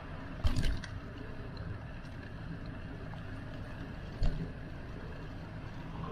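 Riding a bicycle: steady wind and tyre rumble on the moving microphone, with a quick cluster of sharp rattling knocks about half a second in and a single knock just after four seconds, as from the bike jolting over bumps.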